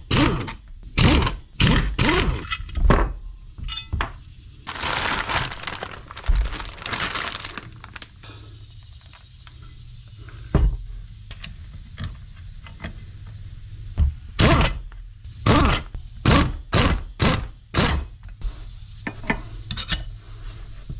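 Metal tools and parts clanking and knocking while a bracket is taken off a truck engine: a run of sharp knocks at the start, a rough scraping stretch a few seconds in, then another run of knocks near the end.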